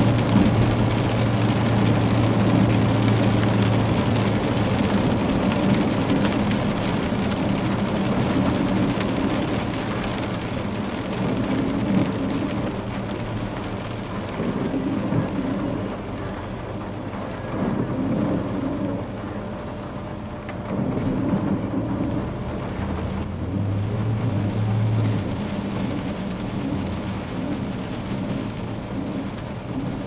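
Heavy rain falling on a truck's windshield and body, heard from inside the cab while driving, with the engine's low steady hum and tyres hissing on the wet road. The rain hiss eases somewhat about two-thirds of the way through.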